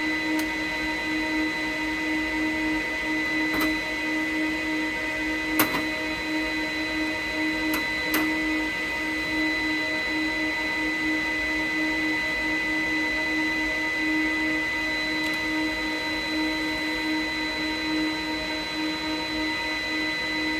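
Steady hum of electronic equipment and its cooling fans, with a constant whine at several pitches. A few sharp clicks, the loudest about six seconds in, from hands working on the battery connectors.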